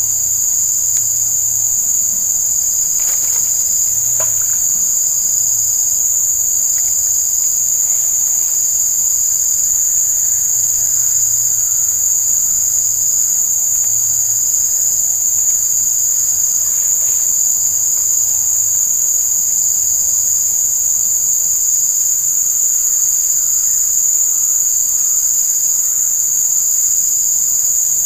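Steady chorus of insects: a continuous, shrill, high-pitched drone that never breaks.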